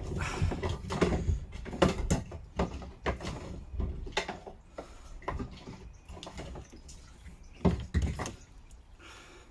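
A fuel pump assembly being worked loose by hand inside a fuel tank's access hole: irregular clicks, knocks and rattles of parts being handled, with a louder double knock near the end.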